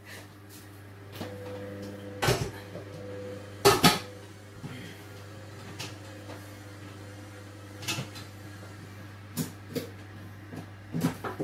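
Scattered sharp knocks and clunks of things being handled in a kitchen, a kind of sound typical of cupboard doors and cookware. The loudest come at about two and four seconds in, and fainter ones follow near the end, over a steady low hum.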